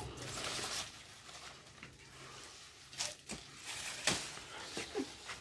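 Dry sugarcane leaves rustling and crackling, with three sharp knocks a little after three seconds and about four seconds in.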